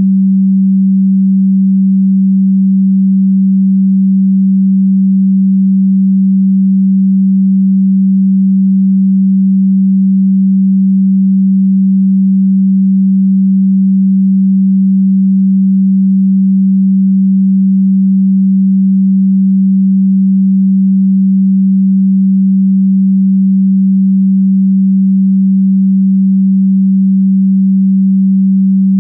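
A single electronic sine tone, low-pitched at a little under 200 Hz, held loud and perfectly steady without a break or a change in pitch.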